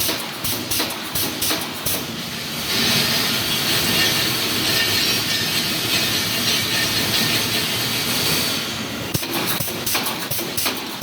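Wire mesh welding machine running, with a rhythmic clacking of about three strokes a second. The clacking gives way to a steady hiss for about six seconds, then resumes near the end.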